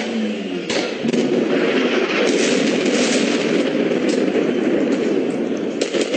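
A bomb explosion from an air strike: a sharp blast about a second in, then a long, loud rumble with crackling. A quick run of sharp cracks comes near the end.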